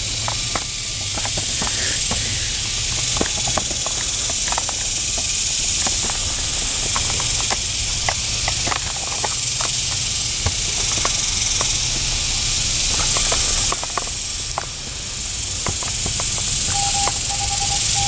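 A steady high hiss of insects buzzing in the summer trees, over a low rumble, with scattered light clicks. A short run of beeps comes near the end.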